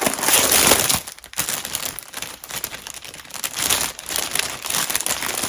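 Packaging crinkling and rustling loudly as a throw blanket is pulled out of it. The noise comes in uneven handling bursts and is loudest about the first second.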